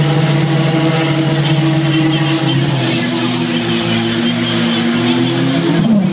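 Loud, steady engine drone from the show's large machines, a buzzing held pitch over a rushing hiss. The pitch wavers slightly and drops briefly near the end.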